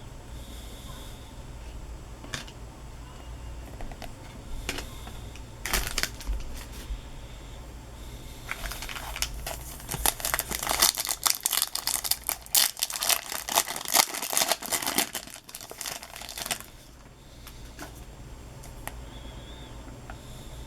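Baseball card pack wrapper being handled: a few light clicks, then from about eight seconds in a long run of dense crinkling and tearing that stops suddenly, like a foil pack being torn open.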